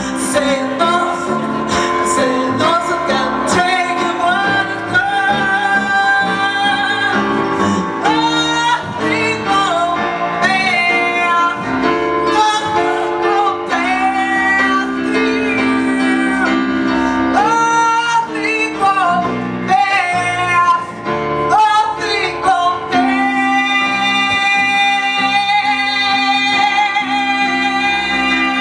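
A woman singing a song live with instrumental accompaniment, holding a long note near the end.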